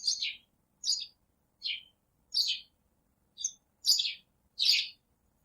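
A bird chirping repeatedly: about seven short, high chirps, each sliding down in pitch, coming at a fairly even pace of one every three-quarters of a second.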